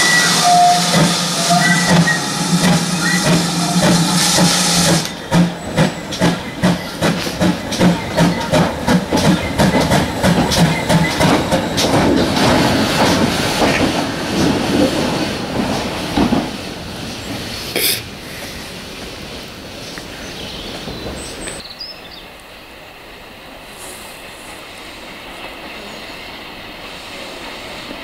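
GWR 5101-class 'Large Prairie' 2-6-2T steam tank locomotive No.5164 passing close by: a loud hiss of steam for the first few seconds, then a regular exhaust beat of about two chuffs a second that fades as the engine draws away.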